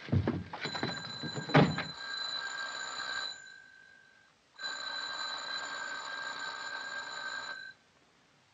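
An electric doorbell rings twice, each ring lasting about three seconds and the second cutting off sharply. Heavy thumps of a trunk being shut come in the first two seconds, the loudest about a second and a half in.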